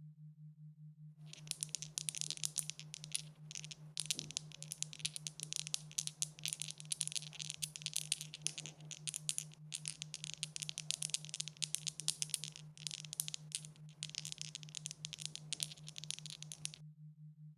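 Dice rattling: a dense run of rapid, high clicks of dice knocking together, starting about a second in and stopping shortly before the end, with a few brief pauses. A steady low hum runs underneath.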